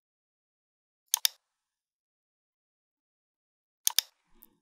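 Two computer mouse clicks, each a quick pair of sharp clicks, about a second in and again near the end, with near silence between.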